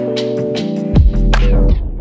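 Electronic background music: held synthesizer chords over a steady beat, with a deep kick drum about a second in.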